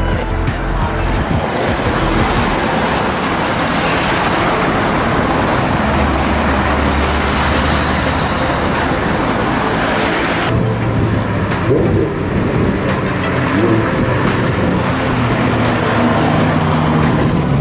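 Road traffic with car engines running and cars driving past, loud throughout. About ten seconds in the sound changes to a lower engine hum with a few short rising tones.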